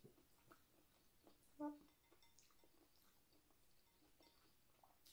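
Faint chewing and small mouth clicks of someone eating boiled shrimp, with a short pitched hum-like sound about a second and a half in.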